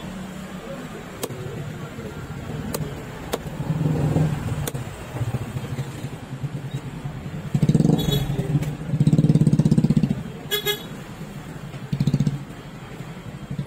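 Motorcycle and car engines passing on the street, swelling loudest about eight to ten seconds in. Earlier there are a few sharp knocks of a knife chopping fish on a wooden block.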